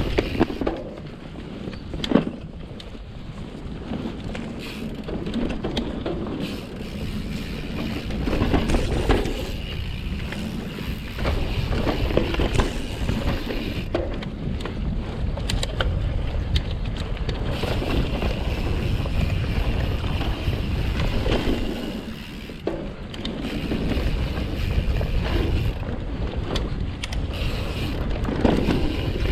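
Mountain bike rolling down dirt singletrack, heard from a GoPro on the rider: wind rumbling on the microphone over tyre noise, with the bike knocking and rattling over bumps. The sharpest knock comes about two seconds in.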